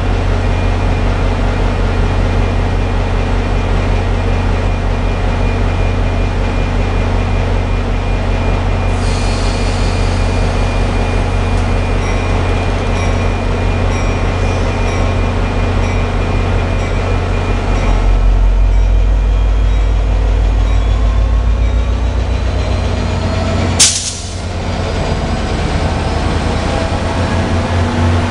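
MBTA commuter rail diesel locomotive running close by with a steady low engine drone. A little past halfway the engine note rises and grows louder as the train gets under way. About six seconds later comes a single brief, loud burst of noise, the loudest moment.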